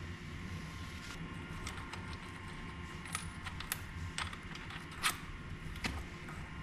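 Light metallic clicks and clinks of small bicycle parts being handled and fitted, a dozen or so scattered over a few seconds with the loudest about five seconds in, over a steady low background rumble.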